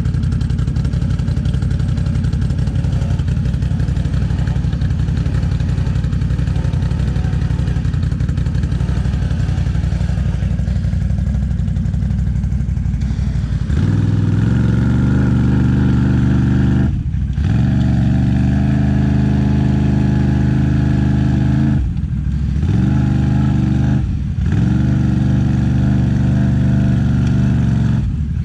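ATV engines idling, then from about halfway revving hard in long pulls, the revs dropping off briefly three or four times and climbing again: a quad stuck deep in mud being pulled free on a tow strap by another ATV.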